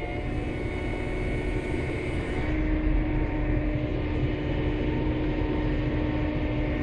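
Vehicle engine running at a steady speed, a low rumble with a constant hum, heard from inside the cab.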